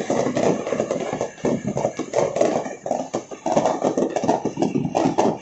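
Many fireworks and firecrackers going off at once, a dense, irregular run of overlapping pops and bangs.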